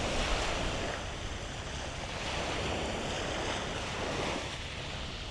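Sea waves washing up the beach, a steady rush of surf that swells and eases.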